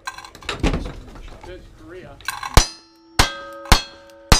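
Four revolver shots about 0.6 s apart, each followed by the ringing clang of a struck steel target, after a clatter in the first second.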